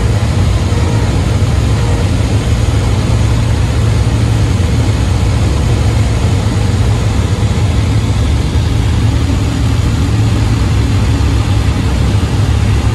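TBM Avenger's Wright R-2600 Cyclone twin-row radial engine running at climb power just after takeoff, a loud steady low drone heard from inside the rear gunner's turret, with rushing air over the canopy.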